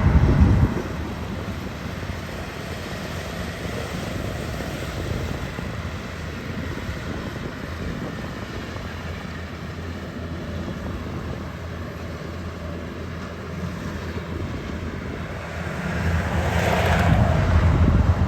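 Farm machine engine running steadily in a rice field. It is loud at the start, then drops back, and comes up louder again about two seconds before the end.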